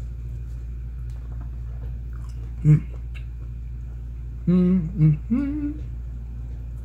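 A man's closed-mouth hums while chewing seafood: one short "mm" about a third of the way in, then three hums in quick succession past the middle, the last gliding upward, over a steady low background hum.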